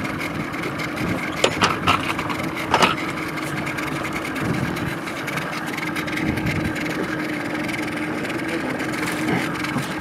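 Boat motor idling steadily, with a few sharp knocks about one and a half to three seconds in.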